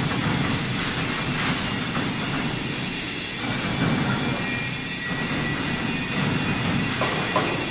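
Steel boom of a small column-and-boom welding manipulator being pushed in and out by hand through its carriage on the column, a rolling steel-on-roller rumble that swells and fades in several pushes, over a steady hiss.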